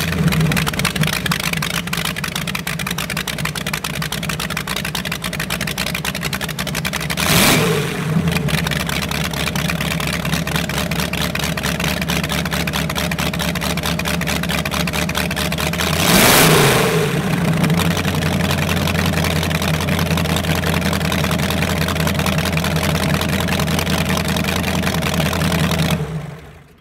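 Big-block V8 of a Pinto wagon drag car, running through open exhaust stacks, idling steadily. It is revved twice, once about 7 seconds in and again about 16 seconds in, each time a quick rise and fall in pitch, and is shut off near the end.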